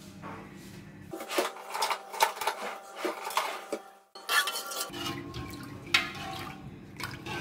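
A metal whisk clinking and scraping against the sides of an aluminium pot as milk is stirred, in repeated irregular strokes, with a brief break about four seconds in.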